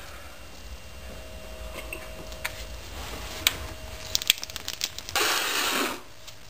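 Water sprinkled by hand onto a floor to simulate rain: scattered drips and light taps, a quick run of them about four seconds in, then a short splashing hiss a little past five seconds, over low camera-handling rumble.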